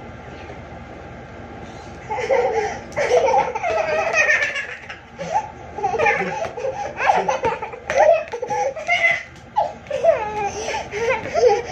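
Toddlers laughing and squealing in high-pitched outbursts, starting about two seconds in.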